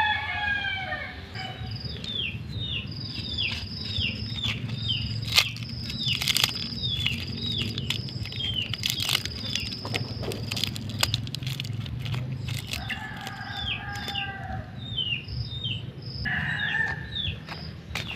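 Backyard fowl: a rooster's crow ends about half a second in, and two more crows come later, one near the middle and one toward the end. Under them a bird chirps over and over in short falling notes, about two a second.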